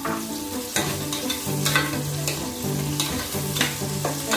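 Garlic, onion and freshly added ginger sizzling in oil in a pot, stirred with a spatula that scrapes the pot about seven times.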